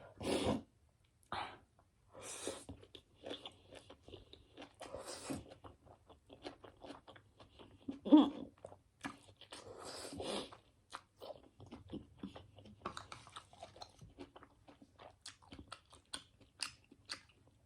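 A person chewing a mouthful of spicy Korean instant noodles: irregular wet mouth clicks and smacks, with one louder smack about eight seconds in.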